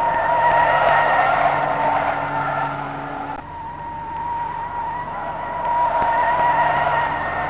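Fiat 500 Abarth's turbocharged four-cylinder engine and exhaust running at high, steady revs, a droning note. It dips briefly a little before halfway, then builds again.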